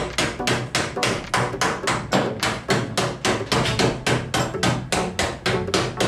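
Body hammer striking the car's inner wheel-arch sheet metal in a steady run of sharp blows, about four a second, straightening the panel ready for a new quarter panel to be fitted.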